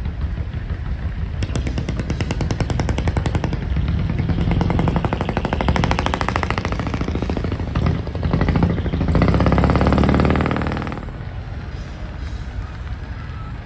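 Loud exhaust of a lowered, decorated van driving off, a rapid machine-gun-like rattle of firing pulses that builds and is loudest near the end. It stops abruptly about eleven seconds in, leaving a lower, even rumble.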